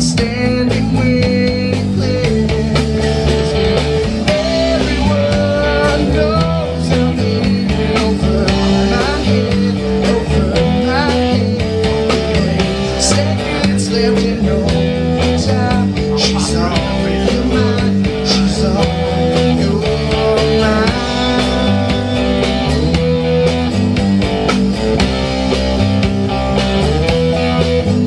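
Live rock band playing through a PA: electric guitar, bass, acoustic guitar and drum kit, with a steady beat.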